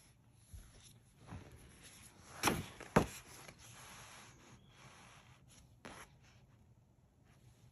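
Hands handling and turning over a paperback picture book: quiet rustling and clicks of the paper cover, a louder rustle and a sharp knock about two and a half to three seconds in, then the cover scraping softly for a couple of seconds.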